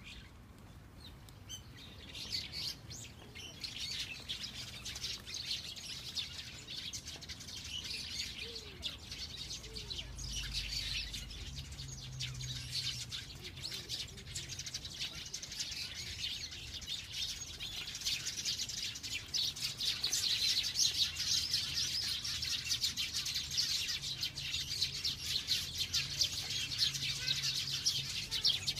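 Small birds chirping, many short high calls overlapping in a continuous twittering that grows louder about two-thirds of the way through.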